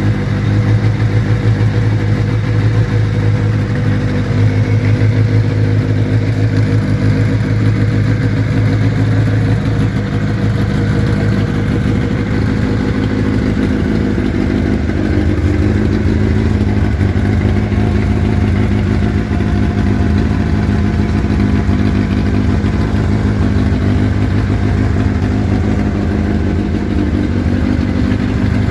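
Vehicle engine idling steadily through an aftermarket stainless-steel exhaust tip, with a loud, deep exhaust rumble.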